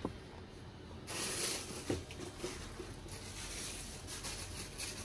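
Rustling of a printed paper picture sheet being handled, with a light tap about two seconds in.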